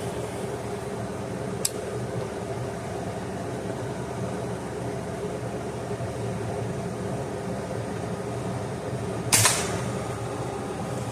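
.22 air rifle firing once about nine seconds in: a sharp crack with a short tail. A small click comes about two seconds in. A steady low hum runs underneath.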